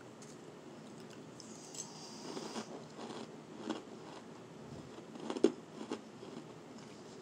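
Close-miked chewing of powdery shaved ice: a few scattered soft crunches, the loudest about five seconds in.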